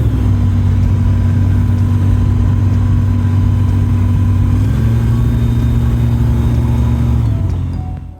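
Zodiac CH 601 light aircraft's piston engine running steadily. Its pitch steps up slightly about two-thirds of the way through, and the sound fades out near the end.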